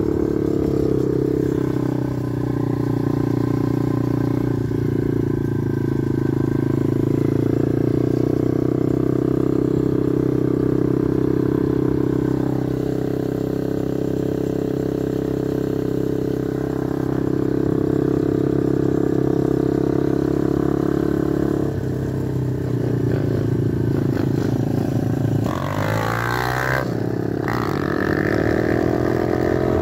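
TaoTao DB17 125cc single-cylinder four-stroke pit bike engine running steadily at riding speed. Its pitch shifts about two-thirds of the way through, then dips and rises again near the end.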